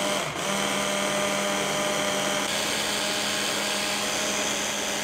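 Electric hand blender running steadily on its chopper-bowl attachment, whizzing up pesto; its motor gives a steady whine with a low hum, briefly dipping about a third of a second in.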